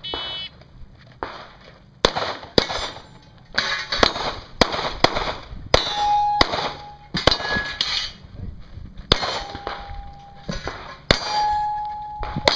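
About a dozen pistol shots fired in quick, uneven strings during a timed course of fire. Several hits are followed by a clang and a ringing tone from metal targets, the longest near the end.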